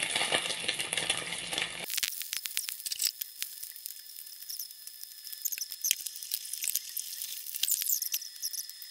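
Chicken skin frying in hot oil in a stainless steel pan: a loud, dense sizzle, then, about two seconds in, quieter crackling with many small sharp pops.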